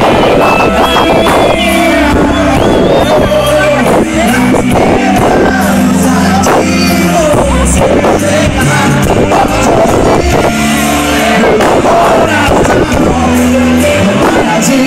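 Band song playing loudly, with a singing voice over drums and melody instruments.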